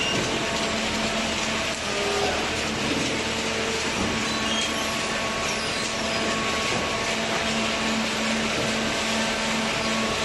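Horizontal cardboard baler running: a steady mechanical noise with a constant hum from its hydraulic power unit.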